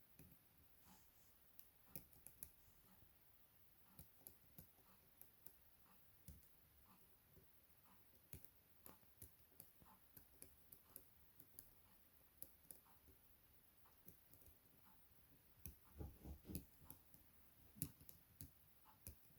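Faint, irregular metallic clicks of a lock pick working the pins of a Chubb M3 rotating-pin cylinder lock under tension, with a denser run of louder clicks and low knocks near the end.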